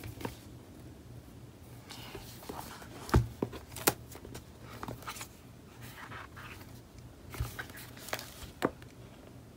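Hardcover notebooks handled on a wooden tabletop: scattered taps, knocks and soft rubbing as they are slid, picked up and opened, with two sharper knocks about three and four seconds in. A faint steady hum lies underneath.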